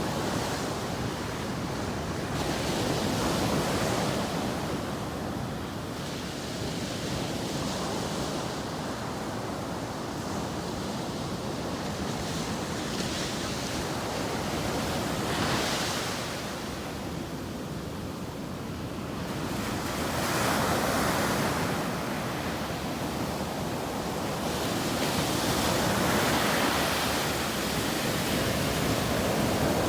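Ocean surf breaking on a beach: a continuous wash of waves, swelling as individual breakers crash every few seconds, notably around 15, 20 and 26 seconds in, with some wind on the microphone.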